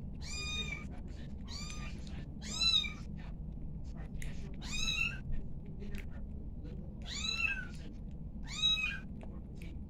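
Kitten mewing: six short, high-pitched mews, each rising then falling slightly, spaced a second or two apart. These are the cries of a hungry littermate waiting to be fed while its brother nurses.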